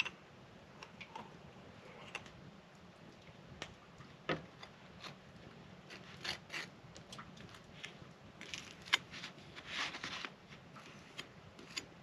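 Table knife scraping mayonnaise across toasted buns on a wooden cutting board: scattered short scrapes and sharp clicks, with a busier run of scraping about two-thirds of the way in.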